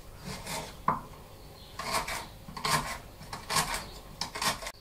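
Kitchen knife slicing a celery stalk on a wooden cutting board: about seven uneven chops, each a sharp knock of the blade through the stalk onto the board.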